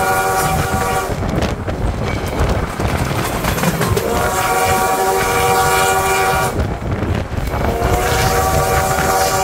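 Steam locomotive 148's chime whistle sounding long blasts for a road crossing: one ends about a second in, the next runs from about four to six and a half seconds, and a third starts about a second before the end, each sliding up slightly in pitch as it opens. The train's running noise and rail clatter carry on underneath.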